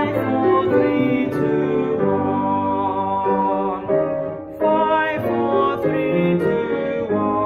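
A man singing a descending five-note scale, step by step, over piano accompaniment as a vocal warm-up. The phrase ends about four seconds in, and after a short gap a new descending phrase begins.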